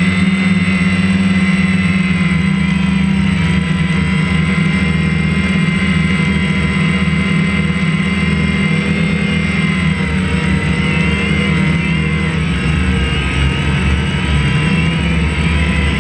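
DJI Phantom quadcopter's motors and propellers droning steadily while it hovers, recorded close up from the camera mounted on the drone; the pitch wavers slightly now and then as the motors adjust.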